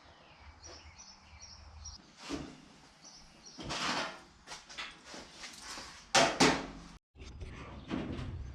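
Sheet-metal body panels being shifted and worked into place: a series of short scrapes and clunks, the loudest pair about six seconds in.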